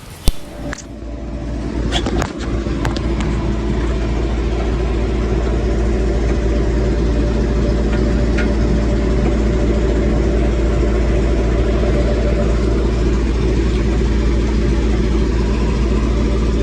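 A few sharp clicks, then a large diesel engine running steadily. Its sound builds over the first few seconds and then holds even.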